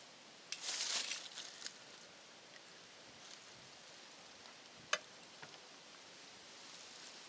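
Faint handling noise: a short scraping rustle about half a second in, then a single sharp click about five seconds in, over a low steady hiss.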